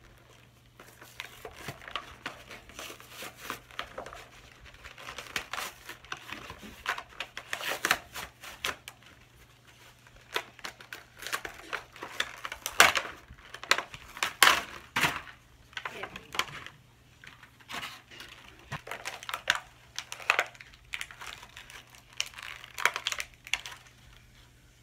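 Clear plastic toy packaging crinkling and tearing as it is pulled open by hand: irregular crackles and rustles, loudest about halfway through.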